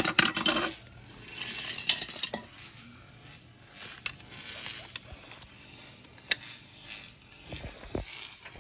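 Steel breaker bar and socket clinking and rattling as they are fitted onto a tie rod end nut and heaved on. A quick cluster of sharp metal clinks at the start is the loudest, then scattered clinks follow.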